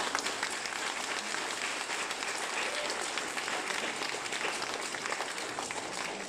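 Audience applauding: many people clapping together in a dense, steady patter, easing a little near the end.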